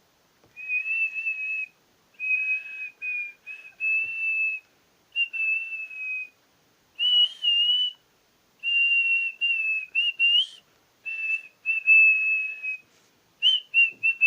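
A person performing artistic whistling: a tune of mostly long, high held notes with a slight waver, in phrases separated by short breaks for breath, with quicker, shorter notes near the end.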